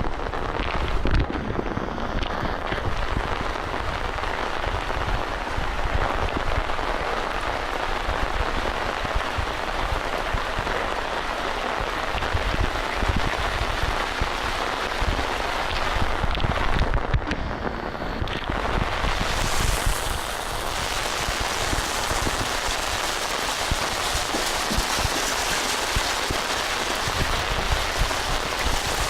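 Heavy rain falling steadily, a continuous even hiss of rain pouring down.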